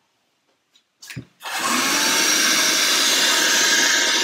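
Handheld vacuum cleaner sucking up sawdust. A short knock about a second in, then the motor starts about a second and a half in and runs steadily and loudly.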